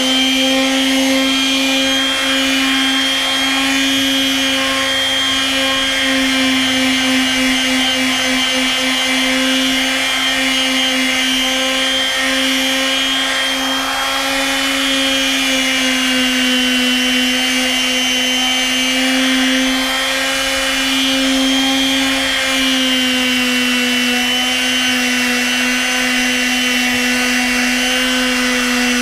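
Makita random orbit palm sander running steadily, sanding deck boards, its motor a constant high hum.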